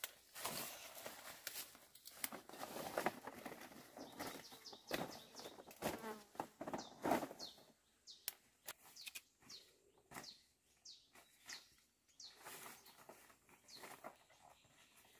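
Dong leaf stalks and foliage rustling, swishing and snapping as they are cut with a machete and gathered by hand, busiest in the first half. Later it turns quieter, with short high falling chirps repeating in the background.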